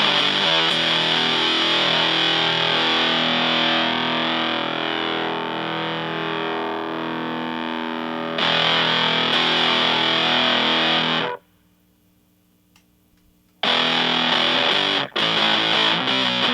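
Electric guitar with heavy fuzz distortion from a Super Power-Fuzz pedal (a modded Big Muff), a Fender Stratocaster played through a Fender Blues Junior amp. A chord rings and slowly fades, a new chord is struck about eight seconds in and choked off about three seconds later, and after a couple of seconds of near silence the playing resumes with short choppy stops.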